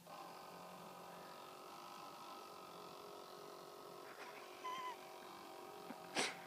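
Small electric motor of a toy RC boat running with a steady, high whine. A brief chirp sounds a little before five seconds in, and a sharp click near the end.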